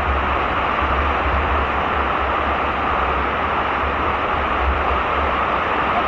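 Water pouring over a check dam wall and crashing down the rocks below: a loud, steady rushing with a deep rumble underneath, close to the microphone.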